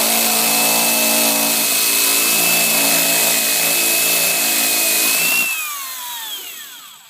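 Electric drill running at full speed with its bit boring into a deadbolt lock, a steady high whine over the motor. About five and a half seconds in the trigger is released and the drill spins down with a falling whine.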